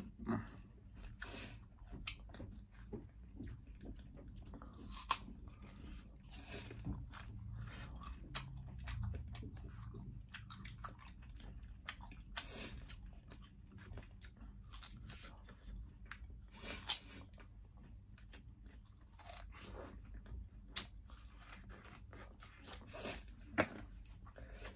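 Two people chewing banana close to the microphone: soft, wet mouth noises with many small clicks and smacks.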